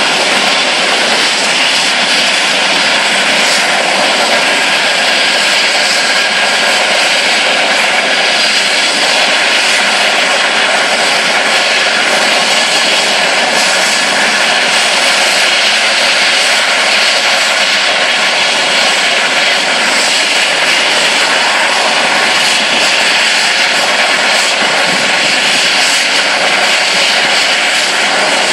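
Air ambulance helicopter running on the helipad with its rotors turning, ahead of take-off: a loud, steady mix of engine whine and rotor noise that does not change.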